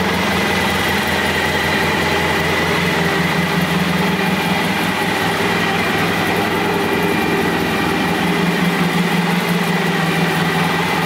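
Honda ST1100's V4 engine idling steadily.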